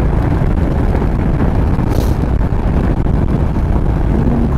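Yamaha XV950R's air-cooled V-twin engine running steadily at road speed, with wind rushing over the microphone.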